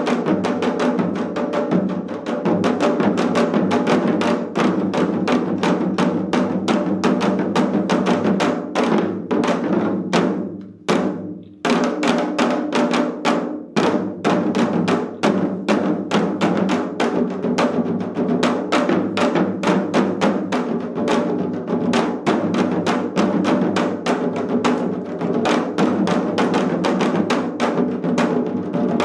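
Ensemble of four janggu (Korean hourglass drums) played together in seol-janggu style: fast, dense drum strokes. About ten seconds in the playing drops almost to silence for about a second, then resumes at full pace.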